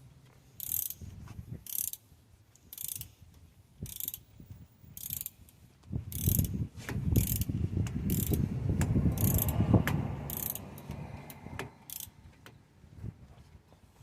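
Socket ratchet wrench working the brake caliper bolts, its pawl clicking in short bursts about once a second on each back-swing. A louder stretch of low handling noise sits in the middle.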